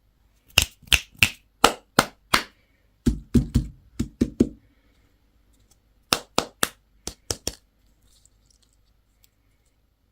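Sharp taps and cracks in three quick runs of about six strokes each, the middle run heavier and deeper in tone, as from hard objects being tapped or cracked by hand.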